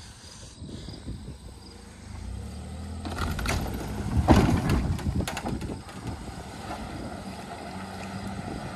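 Pickup truck engine pulling under load as it drags a wrecked pickup across a grass field on a tow rope. The engine rises about two seconds in and is loudest around three to five seconds, where a few knocks are heard, then it settles to a steady run.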